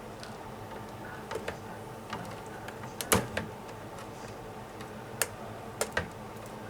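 Scattered light clicks and knocks over a faint steady hum, the loudest click about three seconds in and a few more near the end.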